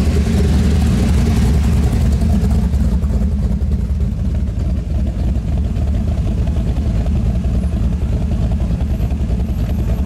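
Engines of lifted Chevy trucks running with a steady, loud low rumble as they roll past at low speed in a line, a little louder over the first few seconds as the first truck passes close by.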